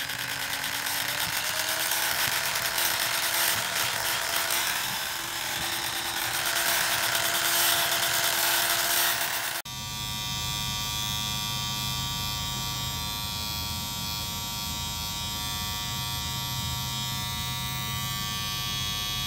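Electric hair clippers buzzing steadily as they shave the fur from an anaesthetised cat's groin before neutering. About halfway through the sound changes abruptly: a hissier buzz gives way to a steadier, more even hum from a second trimmer.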